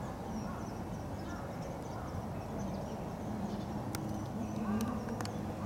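Outdoor ambience: a low murmur of distant voices with faint chirps of small birds, and a few sharp clicks about four to five seconds in.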